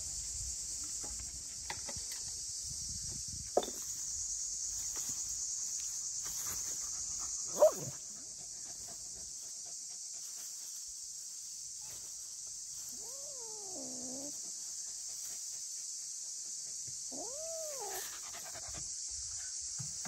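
A dog's two short, sharp yelps about four and eight seconds in, the second the loudest, and later two drawn-out whining cries that rise and then fall in pitch, over a steady high drone of insects.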